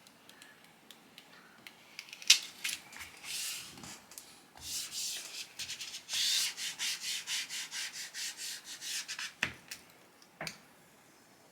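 Plastic applicator tool rubbed over a film screen protector on a phone screen in quick back-and-forth scratchy strokes, about three a second, pressing the film down onto the glass. A few sharp clicks of handling come before and after the rubbing.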